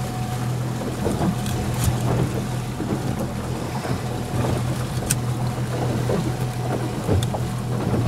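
Boat engine running steadily with a low hum, with a few faint clicks over it.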